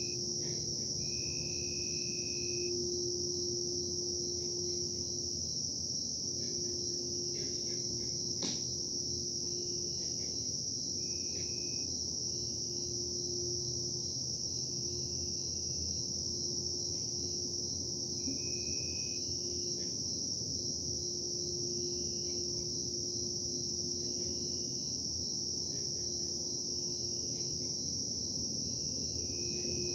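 Steady high-pitched cricket chorus over a constant low machine hum and rumble, the industrial production noise the recordist complains of. Shorter higher chirps come and go, and there is a single sharp click about eight and a half seconds in.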